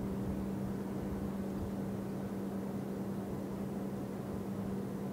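Machinery of a large cable ferry running steadily under way, a constant hum with an even rumble beneath it.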